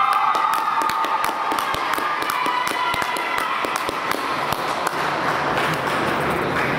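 Audience clapping, many quick irregular claps overlapping. A held note of the performance music fades out over the first few seconds.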